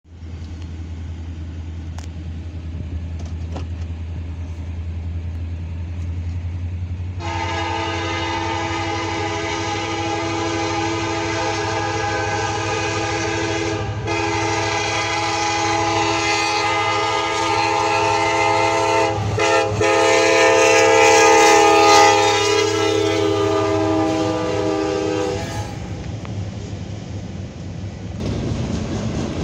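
Diesel locomotive horn of a CN SD70M-2 sounding a grade-crossing warning: a held chord of several notes in long, long, short, long, with the last blast held longest and loudest as the locomotive nears. A steady low rumble of the approaching train runs underneath.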